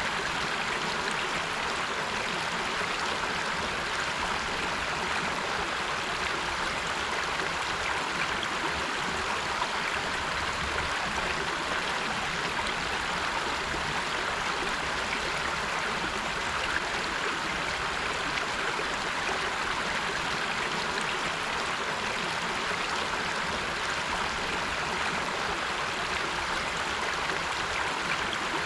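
River water rushing and splashing over rocks in a steady, unbroken wash.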